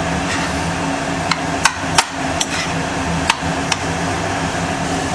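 A metal spatula knocks sharply against a cooking pan about seven times at an irregular pace while smashed potatoes are stirred and browned, over a steady background hum.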